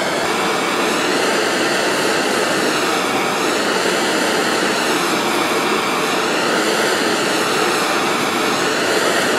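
Handheld propane torch on a one-pound cylinder burning steadily, a constant rushing hiss, as its flame heats a steel knife blade toward hardening temperature.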